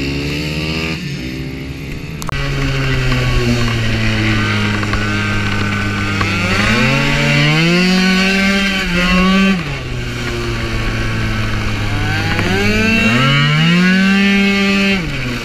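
Race-tuned 95cc two-stroke Piaggio Zip scooter engine heard from on board at full throttle: twice the revs climb quickly, hold high and steady as the variomatic transmission lets the scooter gather speed, then fall away off the throttle into a corner. For the first two seconds scooters are heard from beside the track instead.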